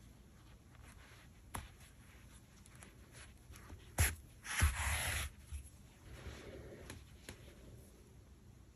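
Handling noise of sewing a crocheted piece: chunky acrylic yarn rubbing and rustling as it is drawn through the stitches, with a sharp click about four seconds in and a brief louder rustle just after it.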